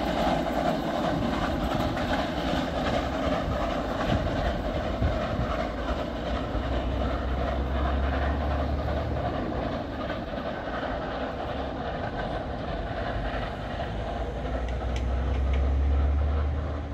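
Pt47 steam locomotive and its passenger train running away along the track, the rumble of the train slowly fading.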